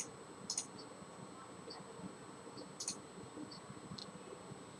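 A computer mouse clicking a few times, sharp single clicks about half a second in, near three seconds and about four seconds in, over faint steady room noise.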